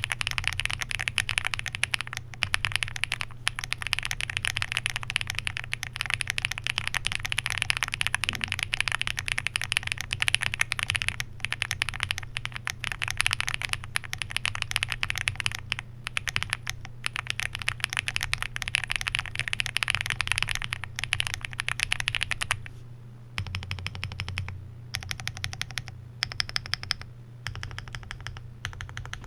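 Fast, continuous typing on a Weikav Record Alice mechanical keyboard with Gateron SolDark linear switches, a polycarbonate plate, full foam and GMK keycaps. About three-quarters of the way through it gives way to slower, separate key presses.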